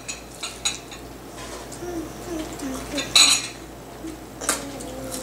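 Forks clinking and scraping on dinner plates while people eat: a few light clicks, then a louder clatter about three seconds in.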